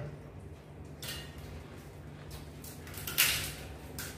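Small clicks and cracks of crabs being handled and eaten, with one louder sharp crack about three seconds in.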